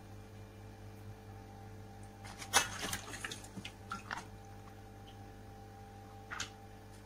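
Water splashing in a basin as a sheet of rice paper is dipped in to soften and lifted out. It is loudest about two and a half seconds in, followed by a few drips and small splashes, and there is one more short splash near the end.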